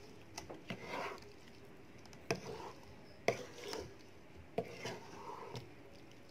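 Wooden spatula scraping and tapping against a nonstick wok while stirring and scooping a thick potato and bean curry, with several faint, sharp taps at irregular intervals.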